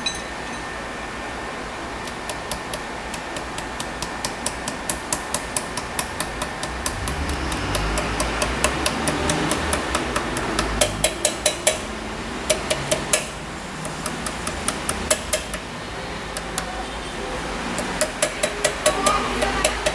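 Runs of light, sharp metallic taps, about three or four a second with short pauses between runs, as a new oil seal is driven onto its shaft with a seal-installer tool.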